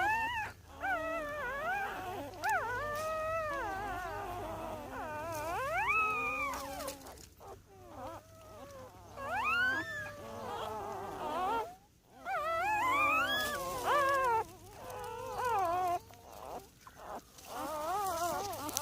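Two-day-old newborn puppies whining, with several high, wavering cries overlapping one another and brief lulls about a third and two-thirds of the way through.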